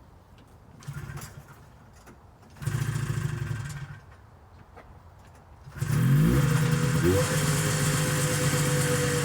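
Two-stroke engine of a 1974 John Deere JD600 snowmobile being started: two brief attempts, the second firing for about a second before dying. A few seconds later it catches and runs, quickly rising in pitch and then idling with a short rev about a second later.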